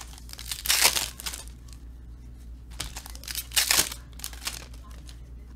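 Foil wrapper of a Panini Elite football card pack crinkling and tearing as it is opened, in two bursts: about a second in, and again from about three to four seconds in.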